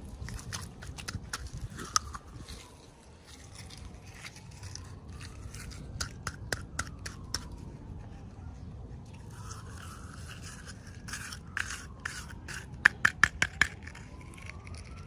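Plastic toy packaging being opened and handled, with scraping and scattered sharp clicks and a quick run of loud clicks near the end. A faint tone slowly rises and falls in the background.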